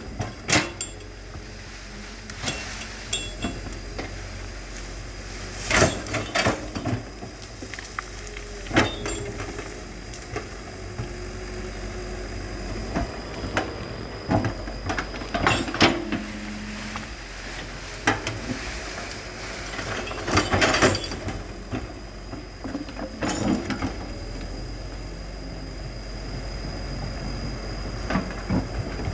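Excavator at work: its diesel engine running steadily under repeated sharp metallic clanks and knocks, scattered irregularly.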